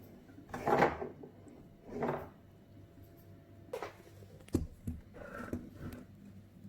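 Kitchen handling sounds: a few short scrapes, the loudest about a second in, then several light clicks and knocks of utensils and dishes.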